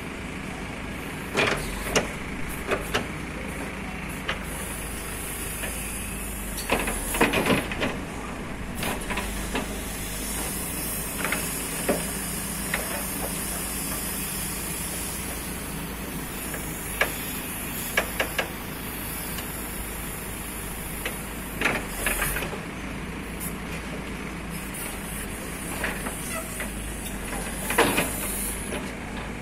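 JCB 3DX backhoe loader's diesel engine running steadily under digging work, with sharp metallic clanks and knocks from the digging arm and bucket every few seconds, several in quick succession about a quarter of the way in.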